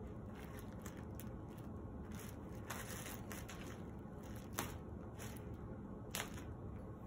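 Clear plastic bag crinkling and crackling in irregular bursts as a Bengal cat bites and kicks at it, with sharper crackles about four and a half and six seconds in.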